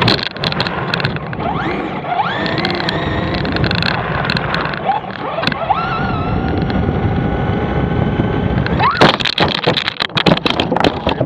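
RC car motor revving up again and again, its whine rising in pitch with each burst of throttle, then a loud clattering run of impacts near the end as the car crashes and tumbles.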